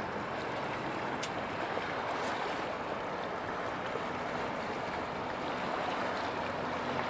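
Large pure car carrier passing at close range: a steady rush of water washing along its hull, with a faint low drone of the ship underneath.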